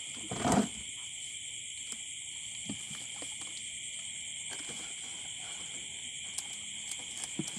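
Steady chorus of night insects, a constant high-pitched shrilling, with one short louder noise about half a second in and a few faint knocks from baskets being handled.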